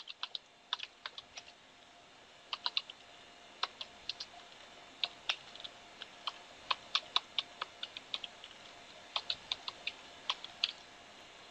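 Computer keyboard keys being typed: irregular short runs of sharp clicks with brief pauses between them, as a command is entered.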